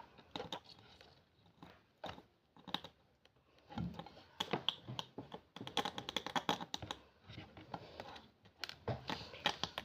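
Needle picking and tapping at a brittle dalgona honeycomb candy: a run of small, irregular clicks and light scrapes, busiest in the middle.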